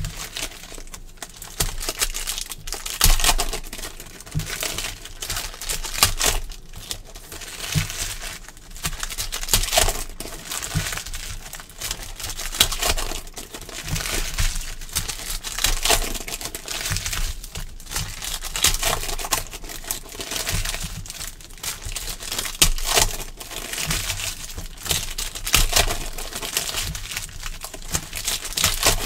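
Foil wrappers of Panini Prizm football card packs crinkling and tearing as packs are ripped open and handled one after another, in irregular bursts.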